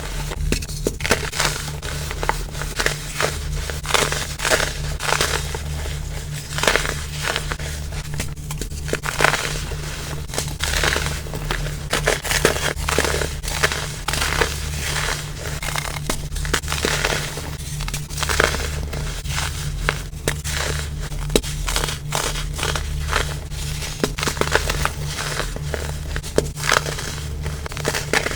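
Baking soda crumble being crushed: a continuous run of crisp, snowy-sounding crunches that come in quick clusters, over a steady low hum.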